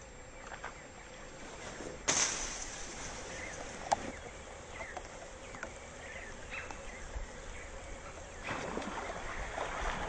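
Rain pattering on a lily-padded backwater, starting abruptly about two seconds in, with a few short chirps. Near the end a splash rises on the water surface.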